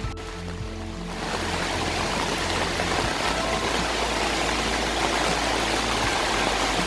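Floodwater rushing and cascading into a flooded road underpass, a steady hiss of running water that comes up loud about a second in and holds on; before that, faint background music.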